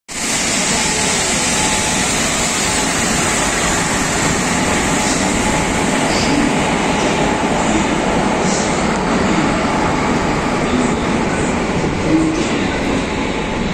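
Electric goods train passing close by: twin electric locomotives and then covered box wagons rolling over the rails in a steady, loud rush, with a few brief high squeaks scattered through it.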